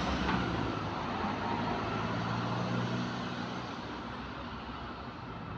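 Diesel bus engine running with an exhaust leak, its sound fading steadily, the engine note dropping away about three and a half seconds in.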